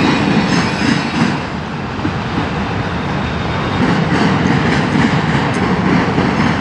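Freight train cars rolling slowly past close by, a steady loud rumble and rattle of wheels on the rails.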